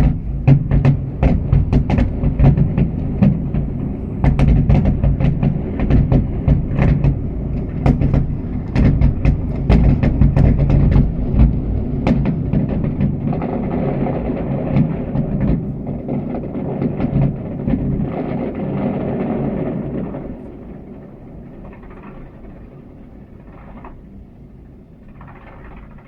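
Aerial fireworks going off in a rapid barrage of booming bursts, then a denser crackling run before the volley dies down about three-quarters of the way through.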